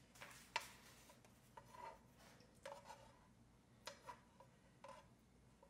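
Faint, scattered light clicks and scrapes, about a dozen small handling noises such as tableware or utensils being touched. A single sharper click about half a second in is the loudest.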